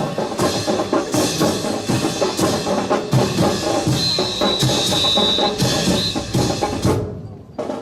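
Music with drums and percussion, dense with sharp strikes, with a steady high note held for about a second and a half near the middle.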